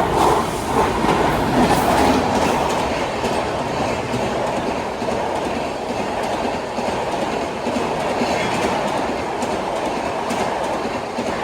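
Shatabdi Express passenger train running past at speed: a steady loud rush of the coaches with repeated wheel clicks over the rail joints, loudest in the first two seconds.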